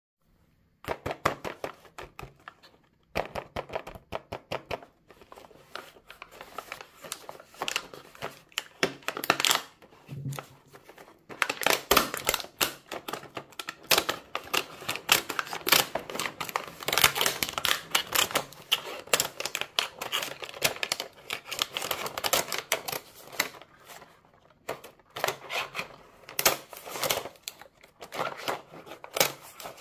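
Fingers tapping, pressing and scratching on the stiff clear plastic blister of a carded toy cookware set, making rapid irregular clicks and crinkles.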